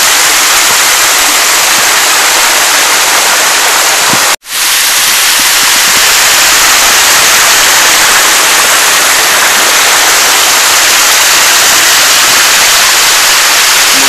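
Small waterfall rushing over rock ledges: a loud, steady hiss of falling water close to the microphone. The sound cuts out for an instant about four seconds in, then carries on as before.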